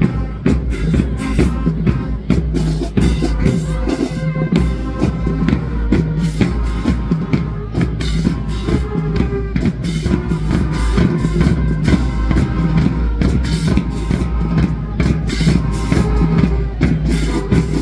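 Loud music with a heavy, steady bass line and a driving drum-kit beat.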